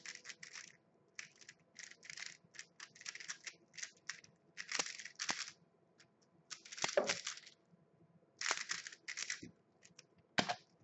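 A plastic speed cube being turned by hand, in irregular short bursts of clicking and rasping with quiet gaps between them.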